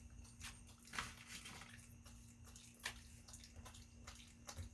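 Faint water splashing and scattered clicks as a raccoon handles nuts in shallow water, with a steady low hum behind.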